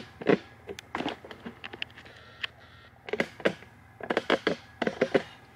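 Irregular light taps and knocks of things being handled, in short clusters: a few near the start, then a quicker run about three to five seconds in.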